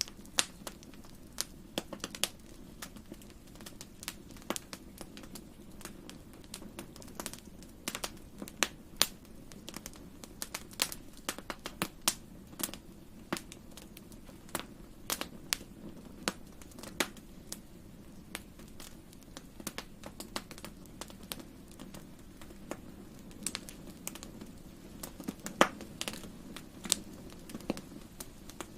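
Wood fire in a fireplace crackling: many sharp pops and snaps at irregular intervals over a steady low rumble of the flames.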